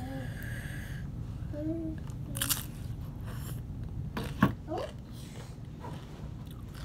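Biting and chewing crisp tostada bits close to the microphone, with a few sharp crunches, the loudest about four and a half seconds in.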